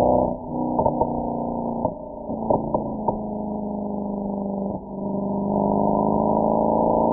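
Mercedes-AMG SL63's V8 exhaust droning at a steady engine speed. It drops off early on with a few sharp cracks over the next couple of seconds, as on a lifted throttle, then dips once more near the five-second mark and builds again.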